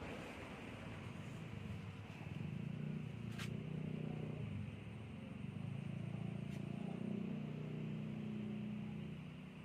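A low engine drone, its pitch wavering slightly, swelling louder twice, with a faint click about three seconds in.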